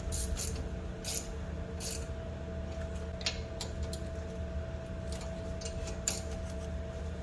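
Scattered metallic clicks and clinks of hand tools working on a car's front suspension and brake parts, over a steady hum.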